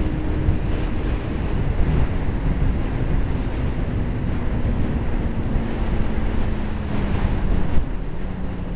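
Wind buffeting a helmet-mounted camera's microphone while riding a Honda Jade 250 motorcycle, over the faint note of its four-cylinder engine. The engine note falls slowly in pitch and drops again near the end.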